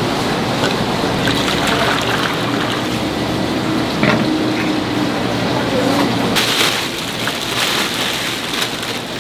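Large steel pan of red tteokbokki sauce simmering and bubbling, with a ladle stirring at the start. From about two-thirds through, a bagful of rice cakes tumbles into the sauce with a busy patter of small splashes.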